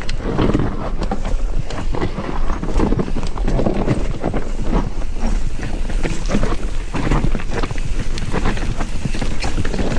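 Mountain bike riding down a rough trail: wind buffeting the microphone over a steady rumble of tyres on the ground and frequent knocks and rattles from the bike jolting over bumps.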